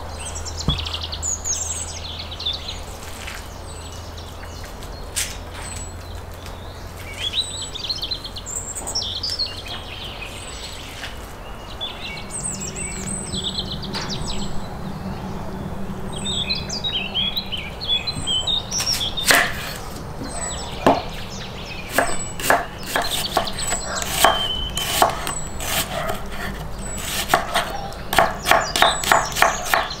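Birds chirping in the background through the first half. From about halfway a steady low hum with scattered sharp clicks and scrapes sets in as oil is spread in a hot cast-iron cauldron. Near the end a quick, even run of rasping strokes, about four a second, comes from a carrot being grated on a metal box grater.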